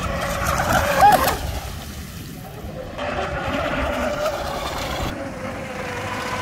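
Radio-controlled mono-hull speed boat running fast across open water: a steady motor whine over the hiss of water and spray. Its pitch briefly rises and falls about a second in.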